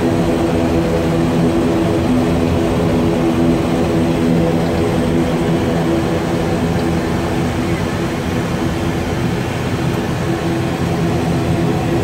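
ATR 72-600's twin Pratt & Whitney PW127 turboprop engines and propellers heard from inside the cockpit: a steady hum with several propeller tones over engine noise, as the airliner rolls along the runway after landing.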